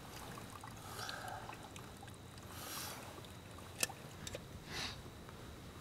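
Faint rustling of a nylon sleeping bag shifting as someone sits up in it, with small handling noises and a single sharp click about two-thirds of the way through.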